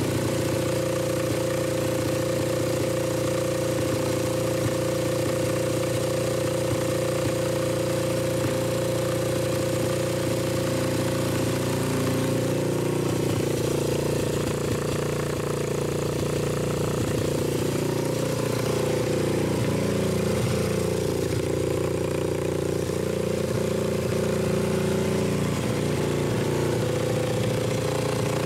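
Suzuki GS500 air-cooled parallel-twin engine idling steadily while it warms up, its speed drifting up and down a little midway.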